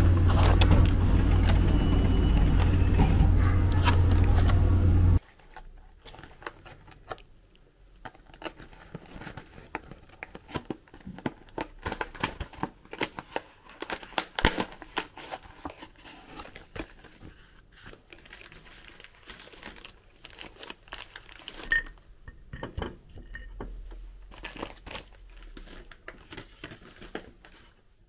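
A loud steady low hum for about the first five seconds, cutting off abruptly. Then the irregular crinkling and clicking of a clear plastic clamshell pack being handled and opened, with a pudding tart taken out of it.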